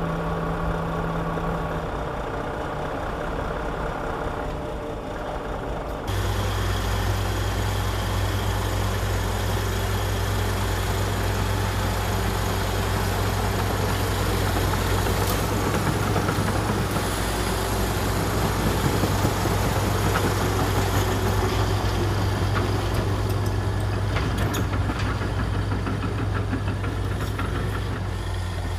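Komatsu D61EX bulldozer's diesel engine running steadily. About six seconds in, the sound jumps abruptly to a louder, deeper engine note. Near the end come a few short knocks.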